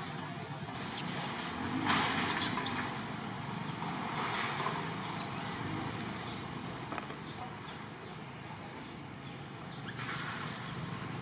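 Infant long-tailed macaque crying in distress: shrill, high squeals in the first few seconds, then fainter cries later, over steady background noise.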